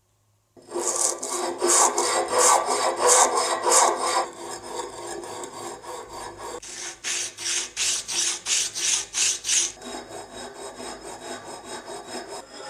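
A hand tool is worked back and forth over metal in rhythmic scraping strokes, about three a second. There are two strong runs, with softer rubbing between them and near the end.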